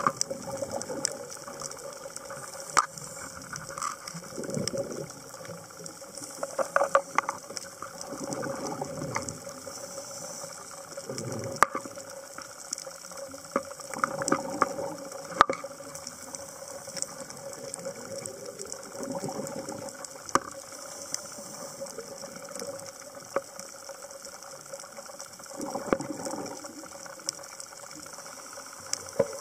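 Underwater sound of a scuba diver breathing through a regulator: bursts of exhaled bubbles every few seconds, with many sharp clicks and crackles and a steady hum throughout.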